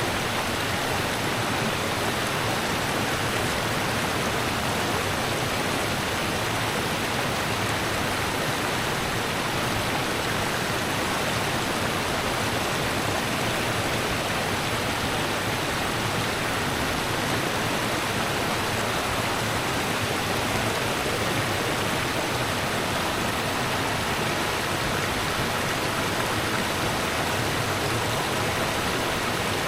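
Rushing river water running steadily, an even hiss-like rush with no changes.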